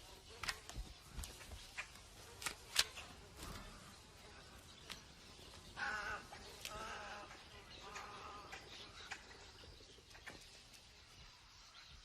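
Faint wildlife ambience: several sharp clicks or snaps in the first three seconds, then a run of short, harsh bird calls from about six to nine seconds in.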